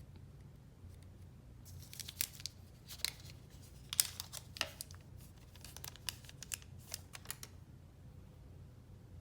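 Packaging being opened by hand: a run of sharp crinkling and tearing crackles starting about two seconds in and stopping about seven seconds in.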